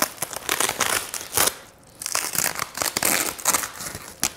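Thin plastic bag crinkling and rustling as hands pull it open around a monitor stand upright, in a run of crackling bursts with a brief pause about halfway through.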